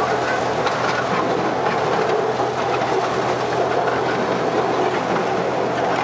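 Miniature railway train under way, No. 595 'Charles Henry' hauling the carriage: a steady running noise of the locomotive and the wheels on the track with faint scattered clicks, heard from the carriage right behind the engine.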